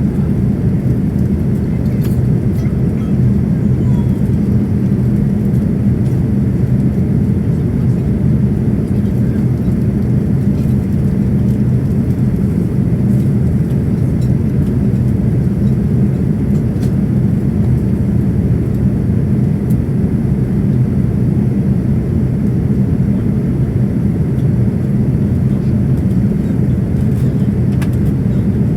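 Boeing 787-9 passenger cabin noise in flight: a steady, unbroken low rumble of engines and airflow.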